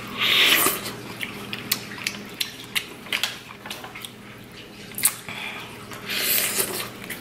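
Close-miked bites into a corn on the cob, twice: a loud crunching tear of kernels about half a second in and again around six seconds in. Between the bites come wet chewing clicks and smacks.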